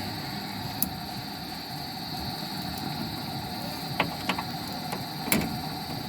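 Steady mechanical hum with a few short, sharp clicks spread through it, the loudest about four and five seconds in, as multimeter test leads are handled and clipped onto wiring.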